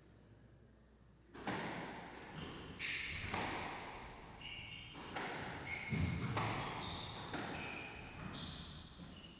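Squash rally: the ball is struck by rackets and smacks off the court walls in a string of sharp, ringing hits, starting about a second and a half in, with short high squeaks of court shoes on the wooden floor between the hits.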